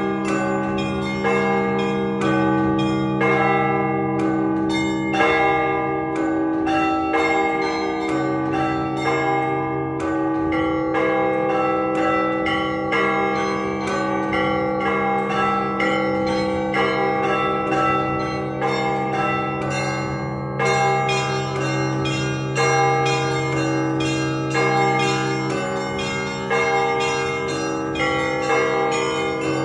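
Russian Orthodox church bells, a set of 32, rung by hand for a service. Small bells strike in a quick, even run over the long deep tones of the larger bells.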